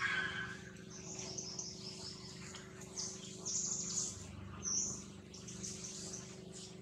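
Small birds chirping in short, high calls several times, over a steady low hum.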